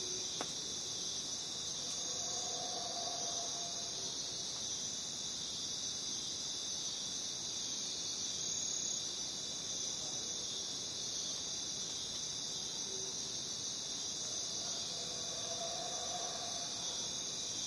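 A dense chorus of jungle crickets chirping, a steady high-pitched shimmer that doesn't let up.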